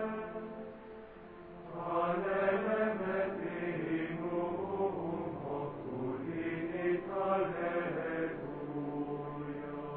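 Voices singing a slow chant with long held notes. It fades briefly about a second in and swells back about two seconds in.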